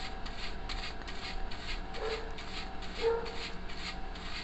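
Soft-bristled anti-static brush scrubbing a laptop motherboard's flat-cable connector with isopropyl alcohol: light, quick brushing strokes, about three a second. Two brief low hums come about two and three seconds in.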